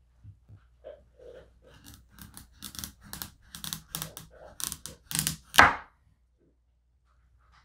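A Victorinox 8-inch chef's knife cutting through the neck of a raw butternut squash: a quick run of short cutting and scraping strokes as the blade works down through the dense flesh, growing louder. The run ends about five and a half seconds in with a sharp knock as the blade reaches the wooden cutting board.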